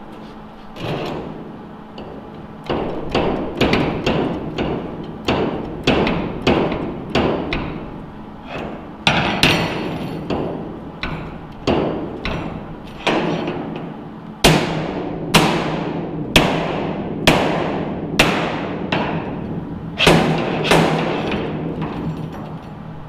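Hammer blows on the sheet-steel side panel of a truck rack, about one a second, each one ringing in the metal.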